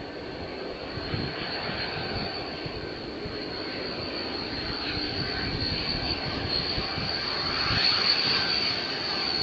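Twin Rolls-Royce Dart turboprop engines of a Hawker Siddeley Andover C1 with its undercarriage down, a steady high whine over the propeller noise. The sound grows louder as the aircraft comes closer and is loudest about eight seconds in.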